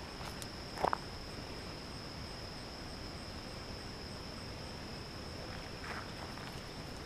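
Insects singing in a steady, high-pitched drone, with a faint regular pulsing above it. Footsteps crunch on gravel twice: about a second in and again near the end.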